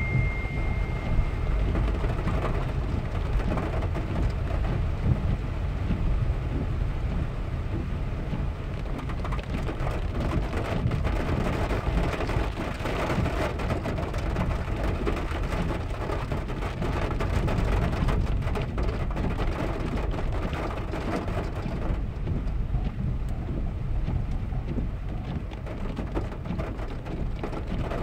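Rain falling on a car's roof and windscreen, heard from inside the cabin, over the low rumble of the car rolling along a rough paved road. A single steady high beep lasts about two seconds at the start.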